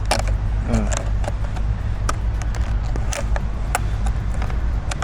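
Scattered short plastic clicks and taps as the interior door trim panel and its clips are pushed back into place on the door, over a steady low hum.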